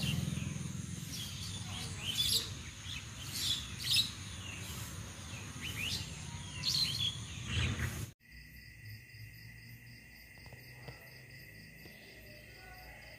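Birds calling repeatedly in short sweeping calls over a low rumble. About eight seconds in, the sound cuts abruptly to a quieter, steady, pulsing chirring of insects.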